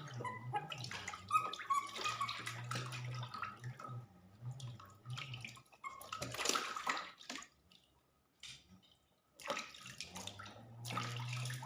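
Water splashing and running in irregular spells while a young pet is washed in a bath, with a quiet pause of about two seconds partway through.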